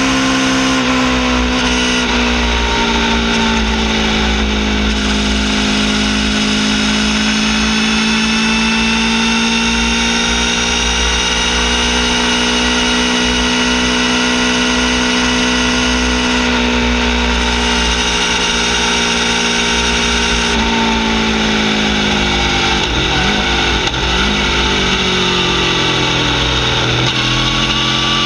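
Aprilia Tuono V4 R's V4 engine running through a full titanium Akrapovic Evo exhaust with a carbon-fibre can, holding a steady cruising note under way. Its pitch dips slightly in the first few seconds, then the revs waver and shift a few times near the end.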